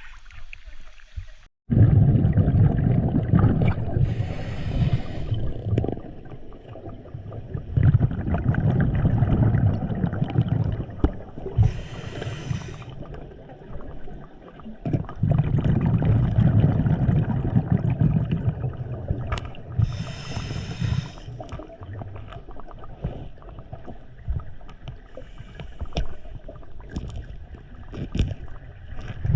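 Scuba diver breathing underwater through a regulator: a short hiss on each inhale about every eight seconds, followed by a long rumbling rush of exhaled bubbles, with scattered clicks and knocks.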